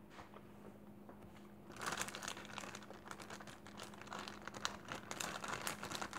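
Candy wrapper crinkling as it is handled: a dense run of crackles that starts about two seconds in after a quiet opening.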